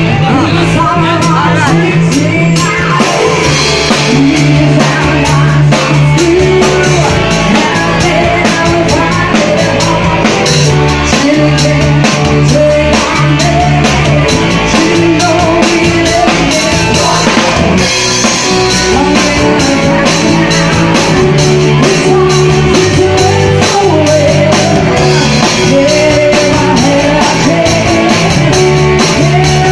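Live rock band playing loudly: a woman singing over a drum kit with busy cymbals and a guitar.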